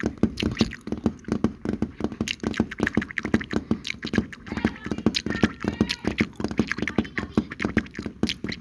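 ASMR mouth sounds: a rapid, irregular run of wet clicks and pops made with the mouth and tongue.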